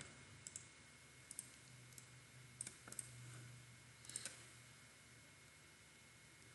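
Faint computer mouse clicks, about five scattered single clicks and quick pairs, over near-silent room tone.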